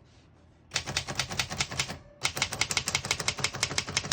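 1941 Remington Remette portable typewriter being typed, its keys clacking in a quick run that starts about three-quarters of a second in, with a brief pause just past the middle before the typing picks up again.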